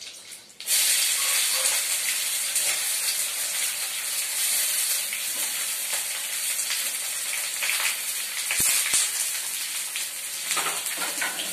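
Chopped onions hitting hot oil in a metal kadai: a sudden loud sizzle starts about half a second in and carries on as a steady frying hiss while a metal spatula stirs them.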